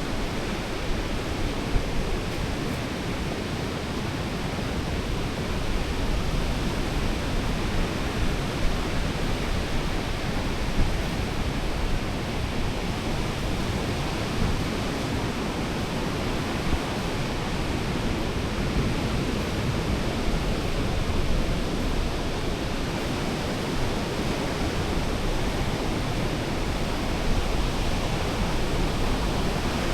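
Steady rushing noise of surf and wind on a beach, an even wash with a heavy low rumble and a few small swells in level.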